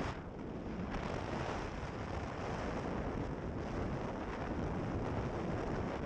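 Wind rushing over the microphone together with the steady rumble and water noise of a boat under way.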